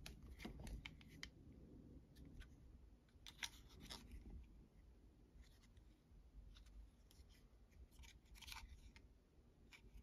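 Near silence, with faint scattered clicks and rubs from a 3D-printed plastic battery adapter being handled and turned over in the hands.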